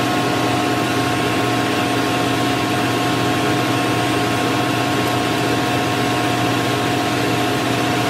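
Steady drone of running machinery in a ship's engine room, with several steady whining tones over an even rush of noise.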